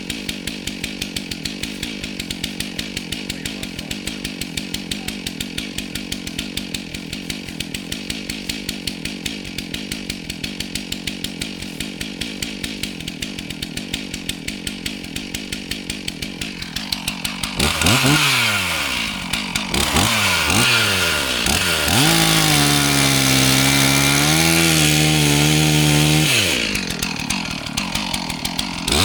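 Gas chainsaw idling with an even, rapid putter, then revved up about seventeen seconds in, its pitch rising and falling. It is held at high revs for a few seconds, as when cutting through a log, drops back, and revs again near the end.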